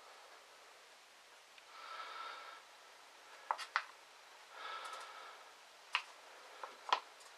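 Two soft nasal breaths close to the microphone, with a few sharp light clicks and taps in between as the paint-covered LP record is handled.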